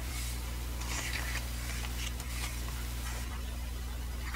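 Pages of a hardcover photo book being turned by hand, a few soft papery swishes, over a steady low hum.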